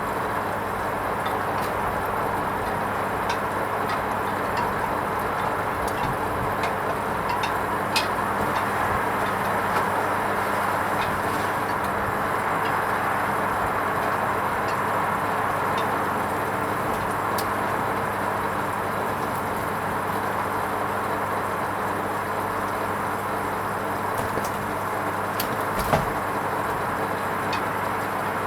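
Hoover Vision HVP16 washing machine running its wool rinse programme: a steady rushing noise over a low motor hum, with a few sharp clicks, the loudest about 26 seconds in.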